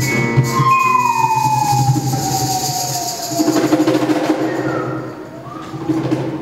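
A live band playing, with a long siren-like tone that slides slowly down in pitch for about two and a half seconds. After that a lower held note with several voices or instruments takes over, easing off a little near the end.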